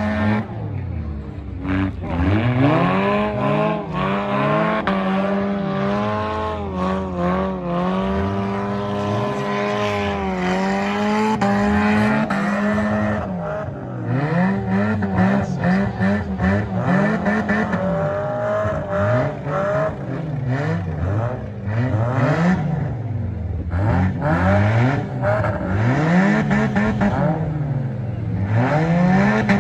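Several compact-car demolition-derby engines revving up and down over and over, their pitches rising and falling against each other, with sharp bangs of car-on-car hits now and then.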